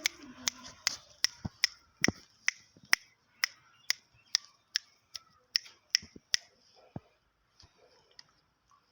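A run of sharp clicks, a little over two a second, evenly spaced for about six seconds, then thinning out to a few faint irregular ticks.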